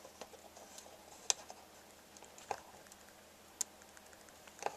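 Faint clicks and small taps of fingers working a plastic speaker-wire binding post on the back of an AV receiver, fitting the bare wire and turning the post; a handful of sharp clicks come about a second apart, the clearest a little over a second in.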